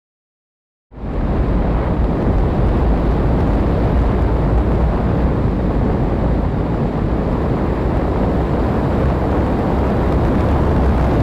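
In-flight noise from a camera riding on an E-flite Air Tractor electric RC plane: loud, steady wind rush and buffeting over the microphone, mixed with the plane's propeller. It starts abruptly about a second in.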